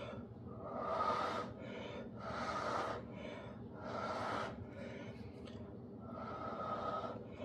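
A person blowing hard through the mouth onto wet acrylic paint to blow out a bloom: four long breathy puffs, each about a second, with short gaps between.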